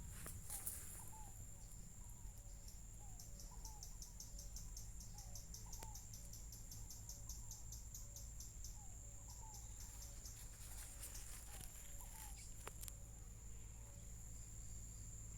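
Insects singing outdoors: a steady high-pitched buzz, with a run of rapid chirps at about five a second from about three to nine seconds in. Short, repeated lower calls from another animal come about once a second, over a low steady rumble.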